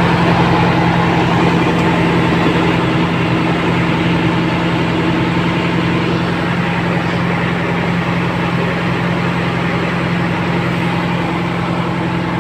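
Hino FM2P truck's diesel engine idling steadily, with an even low hum.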